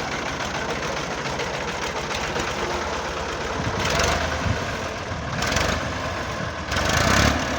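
Tractor diesel engine running with a fast, even knock, swelling louder three times, about four, five and a half and seven seconds in.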